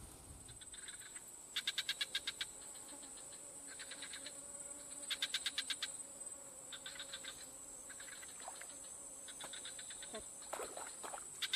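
Insects calling: bursts of rapid chirping, about ten chirps a second, lasting around a second and repeating every second or two, over a steady high-pitched whine.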